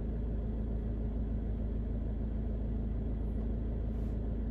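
A steady low hum, unchanging, with a faint steady tone in it.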